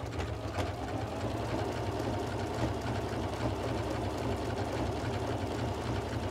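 Janome Memory Craft 14000 sewing machine running steadily at fast speed, stitching a long decorative blanket-style stitch through the layers of a quilt's binding with its built-in AccuFeed walking foot.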